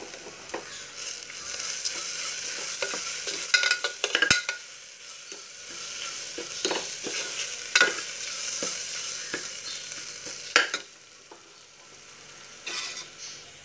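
Onions and ginger-garlic paste sizzling in hot oil in a pressure cooker, stirred with a metal spoon that scrapes and clinks against the pot now and then. The sizzle quietens about ten and a half seconds in.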